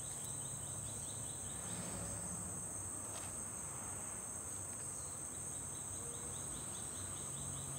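Insects in the vegetation, crickets or cicadas, keeping up a steady high-pitched buzz, with a fainter pulsing trill coming and going beneath it.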